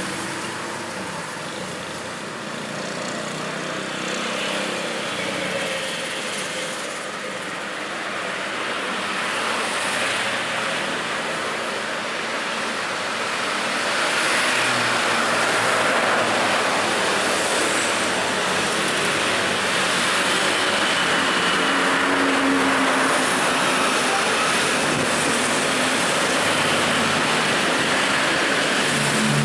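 Steady road traffic noise from passing vehicles, growing louder about halfway through and staying loud.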